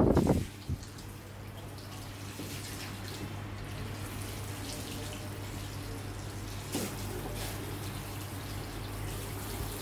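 A steady low hum over faint room noise, with a soft knock about seven seconds in.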